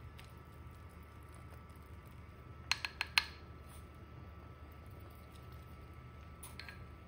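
Four quick, sharp clicks about three seconds in as a spoon scoops salt from a ceramic salt pot, with one fainter click near the end. A faint steady hum and thin whine run beneath.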